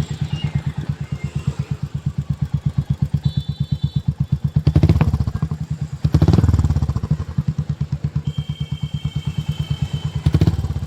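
Royal Enfield Hunter 350's single-cylinder engine idling through a large aftermarket 'bazooka' exhaust with an even, loud beat, blipped up briefly three times, about five, six and ten seconds in.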